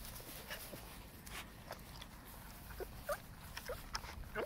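German Shepherd puppies giving a few short, high whimpers in the second half, with light splashing and lapping as they paw at and drink from a bucket of water.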